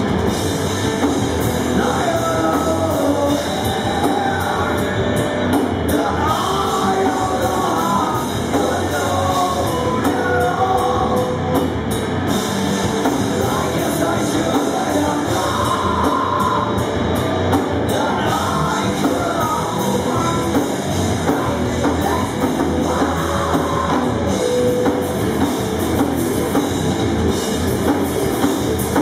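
Live rock band playing loud, heavy music: distorted electric guitars, bass and drum kit with a singer's voice over them, heard from the crowd in a club.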